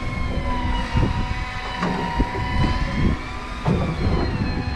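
Electric fishing reel winding in line, its motor whine slowly wavering in pitch over a low rumble, with a few knocks.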